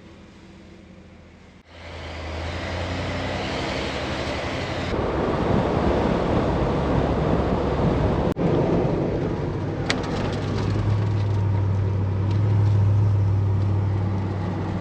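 A vehicle on the road: a steady low engine hum under a wash of road and wind noise, starting about two seconds in after a quiet opening.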